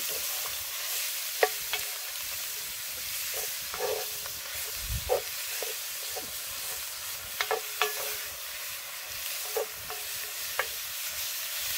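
Ground beef sizzling hard in a cast iron Dutch oven over an open fire that is running too hot, while a wooden spoon stirs it. Scattered sharp clicks sit over the steady sizzle, with a brief low thump about five seconds in.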